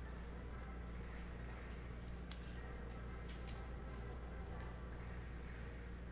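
Trading cards being thumbed through by hand: a few faint, light ticks as the cards slide. Under them run a steady low electrical hum and a thin, constant high-pitched whine.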